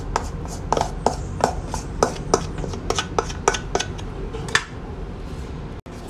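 A metal utensil scraping and knocking against a stainless steel bowl as thick bread batter is scraped out into a metal loaf pan: a quick run of short clicks, about four a second, that dies down about four and a half seconds in.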